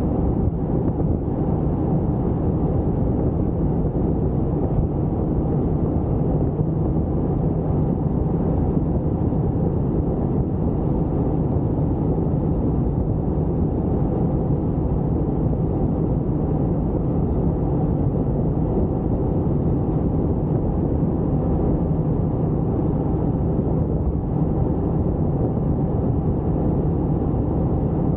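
Helicopter in flight: a steady, dense low rumble of engine and rotor that holds the same level throughout.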